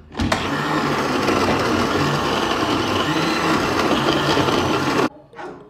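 Countertop blender running, puréeing onion, ginger, garlic and pepper in its glass jar; a steady whirring that starts at once and cuts off suddenly about five seconds in.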